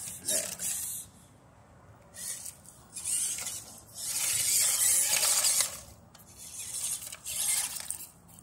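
Toy RC rock crawler driven in short bursts: its small electric motor and gearbox whir in about five spurts, the longest about a second and a half long around the middle, with quiet gaps between.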